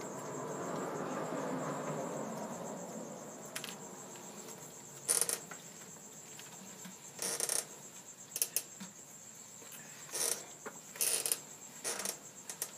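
A cricket trilling steadily at a high pitch, with a low rustling haze over the first few seconds. From about five seconds in, a series of sharp clicks and knocks stands out above it.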